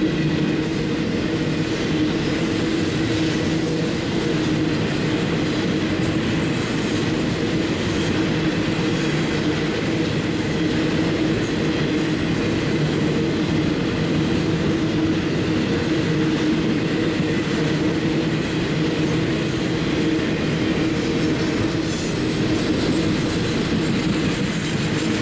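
Double-stack intermodal freight train passing: the steel wheels of the container well cars rolling over the rails in a steady, continuous rumble.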